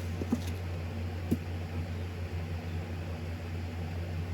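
Steady low hum of room noise, with a couple of faint soft clicks about a third of a second and just over a second in.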